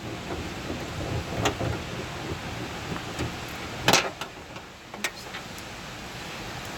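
Scattered light clicks and knocks of hand tools and loosened nuts being handled, with one sharper click about four seconds in.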